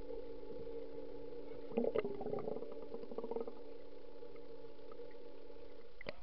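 A swimming pool heard through an underwater camera: a steady hum with a burst of bubbly crackling about two seconds in, then a sharp click as the camera breaks the surface near the end.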